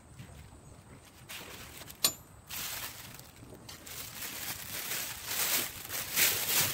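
A sharp metallic click about two seconds in as the peeled-back lid of a sardine tin snaps free, then a thin plastic bag crinkling and rustling, getting louder toward the end.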